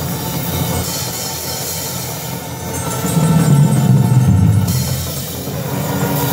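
Marching band of brass and drums playing, the low brass strong, swelling louder about three seconds in.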